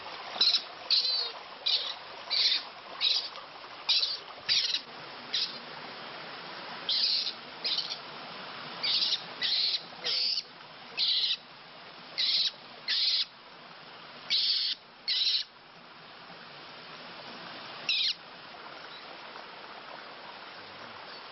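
Short, high-pitched chirping animal calls repeated roughly twice a second, some with a wavering pitch. They stop about fifteen seconds in, with one last call a little later, over a faint steady background noise.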